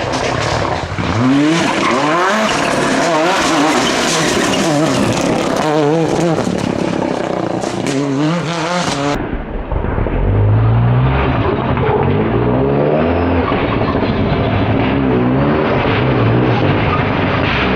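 Rally car engine revving hard, its pitch repeatedly climbing and dropping through gear changes, with tyre noise. About nine seconds in the sound cuts to a duller, lower-pitched engine note that carries on to the end.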